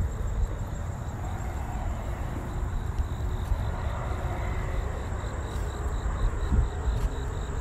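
Low, uneven rumble of wind and handling noise on a handheld phone's microphone, with a faint high-pitched pulsing in the background.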